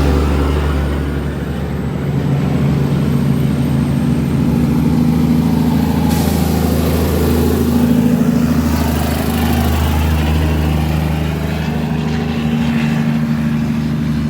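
Heavy truck engine running steadily, pulling up a hill, with a high hiss about six seconds in that lasts a few seconds.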